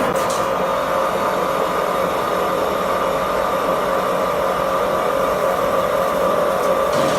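CKG168A CNC pipe thread lathe running, a steady machine noise with a constant whine.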